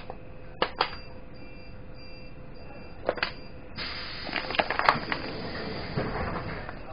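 EN57 electric multiple unit running, heard from inside the carriage: a steady hum, with wheels clacking over rail joints in quick pairs about half a second in and again about three seconds in. Partway through it turns to a louder rattle and rumble with many clicks, which eases off near the end.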